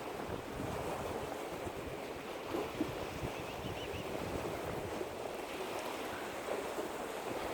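Lake water lapping at the shore with wind on the microphone, and a few faint high chirps about three seconds in.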